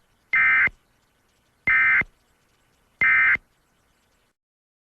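Emergency Alert System end-of-message signal: three short, identical bursts of SAME digital data tones, evenly spaced about 1.3 seconds apart, marking the end of the spoken alert.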